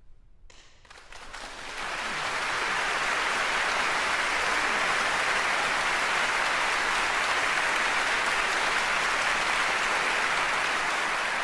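Concert hall audience applauding: the clapping breaks out about half a second in, swells over the next second or so, then holds steady and dense.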